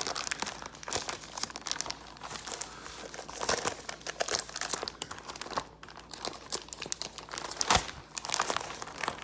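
Packaging being opened by hand: irregular crinkling and crackling of wrapping material, with some tearing.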